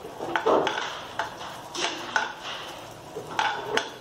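A metal spoon scraping and clinking against a non-stick frying pan in repeated strokes, stirring chopped almonds, cashews and raisins frying in ghee.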